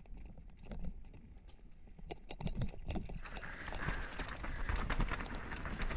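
Mountain bike descending a dirt forest trail, heard from a helmet-mounted camera: a low rumble of tyres on dirt and rock with irregular clicks and knocks from the bike and the rattling full-face helmet. About halfway through, a brighter hiss joins in.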